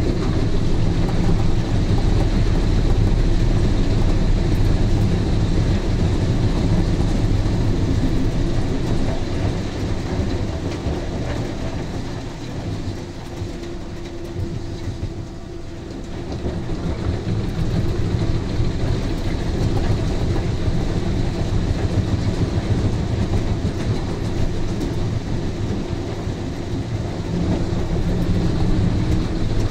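Albach Diamant 2000 wood chipper running under load, chipping softwood logs: a dense, continuous mechanical rumble heard from the operator's cab. The load eases about twelve seconds in and builds again a few seconds later as more logs are fed in.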